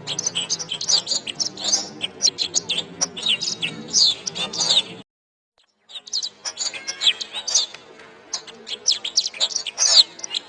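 Domestic canary singing a fast, continuous song of chirps, trills and warbles. It cuts off abruptly about five seconds in for just under a second of silence, then resumes.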